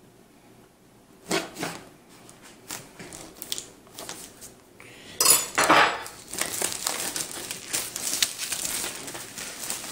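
A butter knife scraping and knocking against a cardboard box as it slits the seal, then, from about five seconds in, plastic shrink wrap tearing and crinkling as it is pulled off the box.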